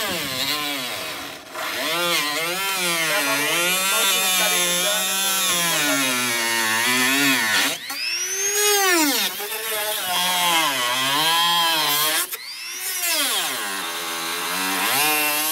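Corded rotary tool with a small cut-off wheel cutting through a plastic bumper cover. Its high whine sags as the wheel bites into the plastic and rises again as the load comes off, with sharp jumps in pitch about eight and about twelve seconds in.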